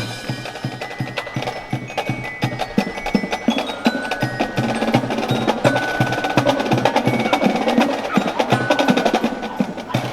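A marching band's percussion section playing on its own in a steady beat of drum strokes. Ringing notes from mallet keyboard percussion (glockenspiel-type bells) sound over the drums, with no brass.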